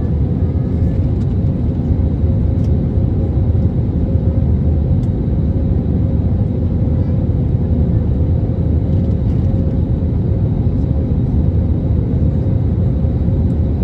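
Steady cabin noise of an Airbus A320neo on approach with flaps extended: a constant low rumble of engines and airflow heard from inside the cabin, with a faint steady hum over it.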